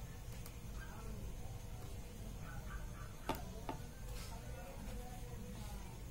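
A few light clicks and taps as a smartphone and a small plastic pan-tilt Wi-Fi security camera are handled: one about half a second in, and two close together a little after three seconds in. A steady low hum runs underneath.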